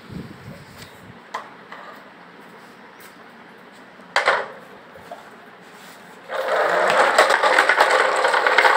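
A few light knocks and a sharp clack about four seconds in as a homemade wooden toy dump truck's tipper bed is handled. From about six seconds in, a loud, dense, steady rattle.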